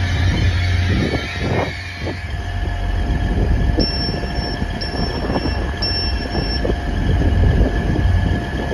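Grand Central Class 180 diesel multiple unit standing with its underfloor diesel engines idling: a steady low rumble with a constant hum. In the middle come three short high-pitched beeps about a second apart.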